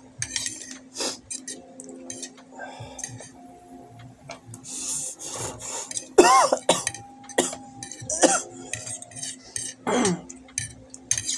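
Exaggerated mukbang eating and mouth noises, with a thin metal utensil handled at the mouth: scattered clicks and smacks, and short rising-and-falling vocal grunts about six, eight and ten seconds in, over a steady low hum.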